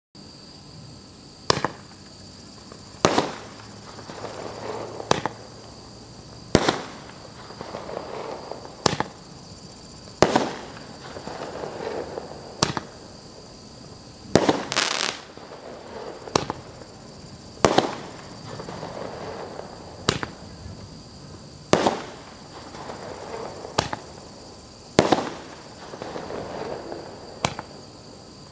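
Eight-shot 0.8-inch Roman candle firing: a sharp pop every one to two seconds, each followed by a short swell of rushing noise.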